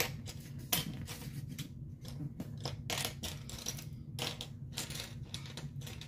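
Small plastic building-set pieces clicking and clattering as they are picked up and sorted by hand, in irregular taps with a sharp click right at the start.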